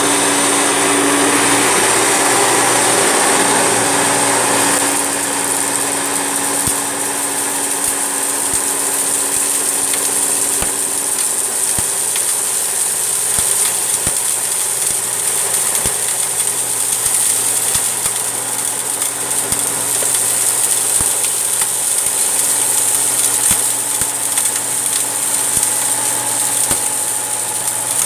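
Hoover Turbolite vacuum cleaner running steadily with a high whine while sucking up a spread of hair and cat litter, the litter granules making scattered sharp clicks. The sound eases slightly about five seconds in.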